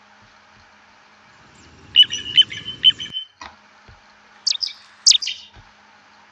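Recorded bird calls playing back: a quick run of sharp, high calls about two seconds in, then two short calls that fall in pitch, about five seconds in.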